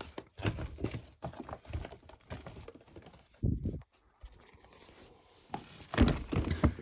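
Boxed electrical switches and sockets being handled: irregular rustling and light knocks of their packaging, loudest about six seconds in.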